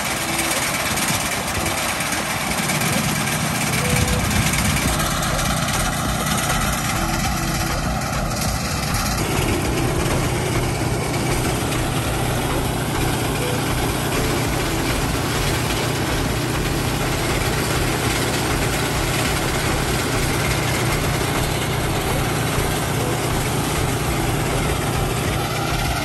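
Small engine running a portable rice threshing machine, a steady mechanical drone with the threshing drum turning as rice stalks are fed in. The drone shifts about three seconds in and again around nine seconds in, settling into a steady low hum.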